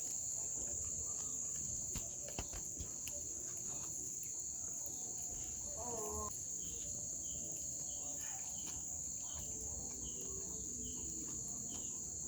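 Crickets chirping in a steady, unbroken high-pitched drone, with a bird giving short repeated calls, about two a second, through the middle of the stretch.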